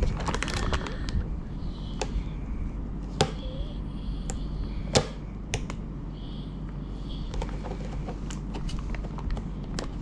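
Fingers pressing and rubbing a sticker decal onto a hard plastic RC truck body shell: irregular sharp clicks and taps with some light rustling, the loudest taps about 3 and 5 seconds in, over a steady low hum.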